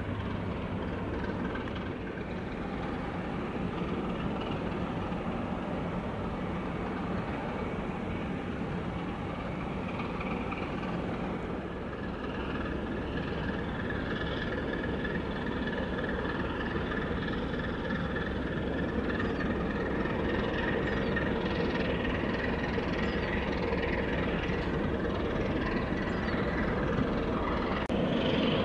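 Steady mechanical rumble of heavy engines running, growing slightly louder toward the end.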